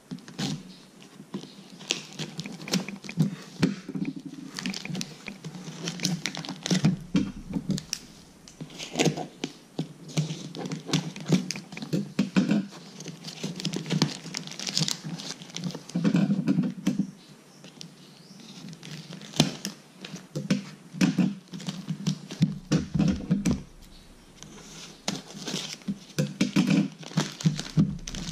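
Scissors cutting into a plastic-wrapped parcel, then hands tearing and crinkling the plastic wrapping off a cardboard box: irregular rustling and crackling with many sharp clicks throughout.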